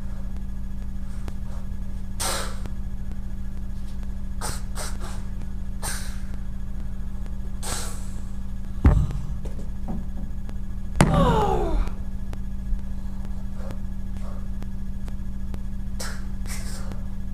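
Sword swung through the air in several short swishes over a steady low electrical hum. There is a thump about nine seconds in, and a louder sound with a falling pitch about eleven seconds in.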